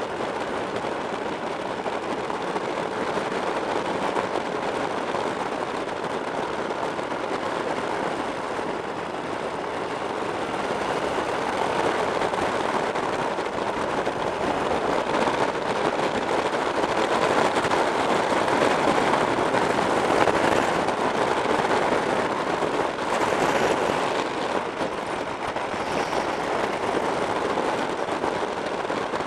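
Wind rushing over the microphone of a camera on a moving motorcycle, mixed with the bike's engine and tyre noise: a steady rushing noise with no distinct engine note, growing somewhat louder in the middle.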